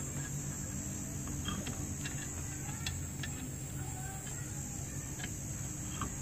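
A steady low rumble and a high, even insect drone, with a few faint metallic clicks as lug nuts are threaded by hand onto the wheel studs.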